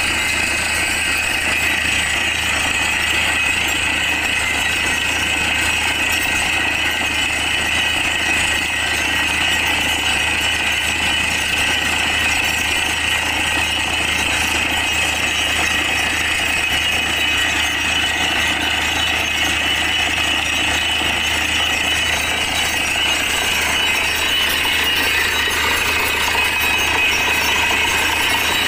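Borewell drilling rig running steadily as it bores, with water and rock cuttings blasting out around the drill pipe in a continuous loud hiss and rattle.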